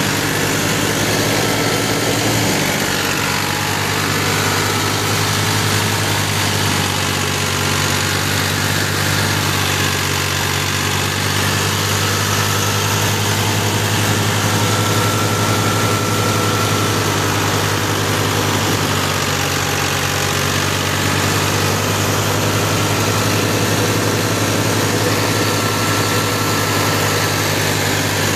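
New Holland Ghazi tractor's diesel engine running steadily, its note shifting slightly about two and a half seconds in.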